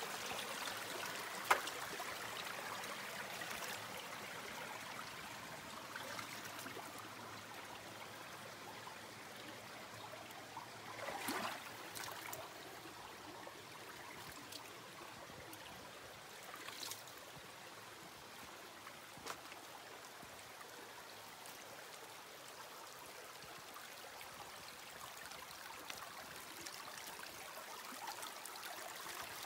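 River water flowing, a steady rushing hiss. A few short clicks and knocks stand out: a sharp one early and a louder little cluster about a third of the way in.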